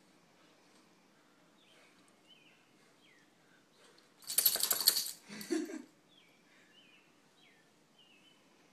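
A dog shaking its head hard, ears flapping and collar tags jingling, in one loud burst of about a second halfway through, followed by a shorter, softer rattle.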